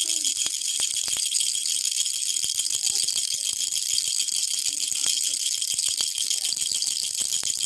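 Children's toy rattle shaken without pause, a dense, even rattling.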